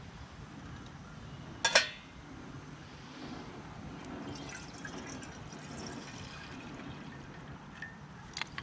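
A sharp knock about two seconds in, then water being poured into a pot.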